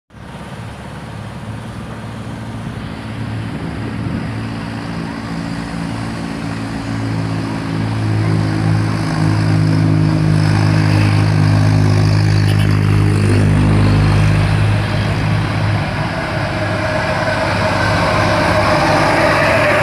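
Heavy truck engine running with a steady low drone, growing louder over the first half as the truck draws near, then holding and easing a little in pitch and level near the end.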